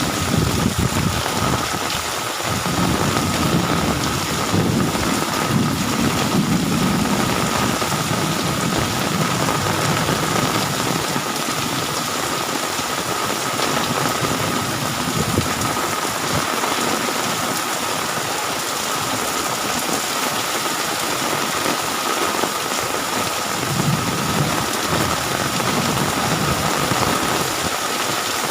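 Heavy rain pouring steadily in a thunderstorm. Low rumbles of thunder swell in the first several seconds and again near the end.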